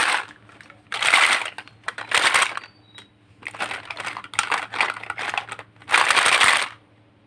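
Plastic toy fruit being cut apart with a toy knife, the hook-and-loop (Velcro) halves ripping open in a series of crackly rips, each under a second long, with a quick cluster of shorter rips in the middle.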